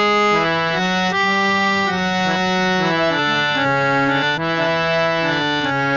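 Harmonium played by hand: a melody of sustained reed notes, each held briefly before stepping to the next, with no gaps between them.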